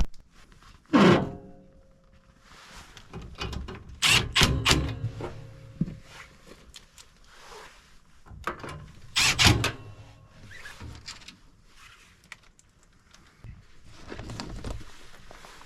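Metal clanks and knocks of hands and tools working on a furnace while a new gas valve is fitted: sharp hits with brief ringing about a second in, around four to five seconds, and again around nine seconds, with quieter handling noise between.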